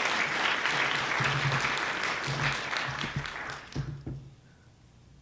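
Audience applauding after a talk, dying away about four seconds in.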